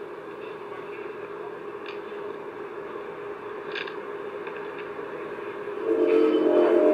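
Steady low droning hum with hiss, of the kind played as the unexplained 'earth groaning' sounds. About six seconds in, a much louder sustained drone of several pitched tones sets in.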